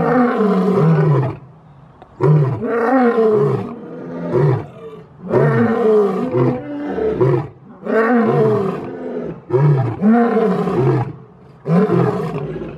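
A male lion roaring in a bout of about six loud roars, each about a second long and falling in pitch, coming roughly every two seconds.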